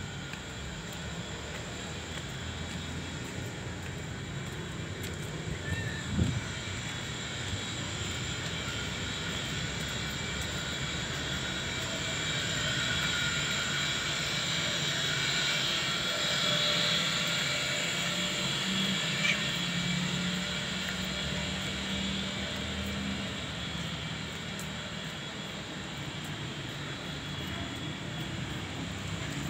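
An aircraft flying over: a steady engine drone that swells toward the middle and slowly fades. There is a brief knock about six seconds in.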